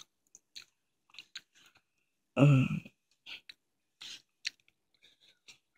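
A person chewing a breaded chicken tender dipped in ranch and hot sauce close to the microphone: scattered wet mouth clicks and smacks, with one brief louder sound about two and a half seconds in.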